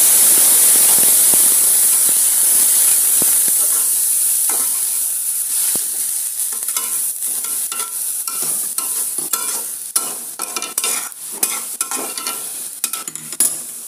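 Cold milk poured onto hot ghee-roasted vermicelli in a steel kadhai, setting off a loud sizzle of boiling and steam that slowly dies down. From about four seconds in, a metal spatula scrapes and stirs around the pan in quick repeated strokes over the fading sizzle.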